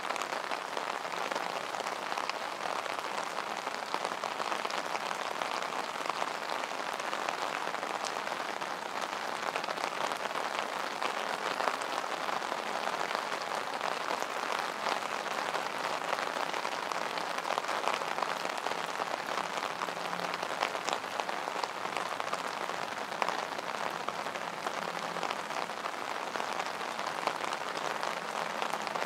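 Steady rain falling, with many sharp little ticks of single drops hitting.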